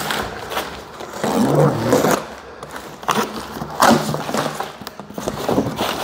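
A large cardboard box being opened: packing straps cut with a utility knife and the cardboard flaps pulled open, heard as irregular scraping, rustling and sharp knocks.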